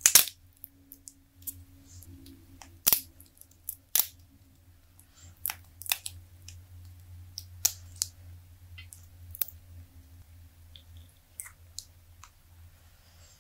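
Silicone dice mold being peeled and flexed off a cured green resin die: sharp crackles and snaps as the silicone pulls free of the resin. The loudest snap comes right at the start, and the others are scattered a second or two apart.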